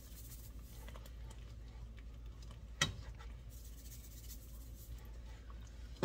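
Pepper shaker being shaken over a pan, giving a faint, fast scratchy ticking, with one sharp click about three seconds in.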